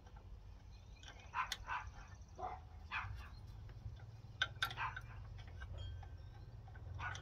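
A dog barking several times, short barks in a loose run. A couple of sharp metal clicks come from parts being handled.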